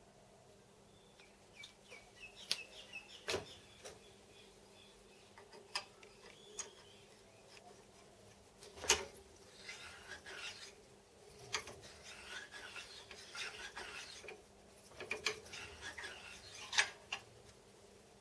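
Metal parts of a machine slide clinking and rubbing on each other: scattered sharp clicks and knocks with short stretches of metal-on-metal scraping, as mating slide surfaces are worked together to check their contact.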